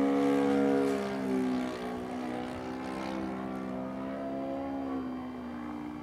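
Enya 120 glow engine of a radio-controlled Carl Goldberg Ultimate biplane running in flight with a buzzing, propeller-driven drone. Its pitch drops about a second in and again around five seconds in.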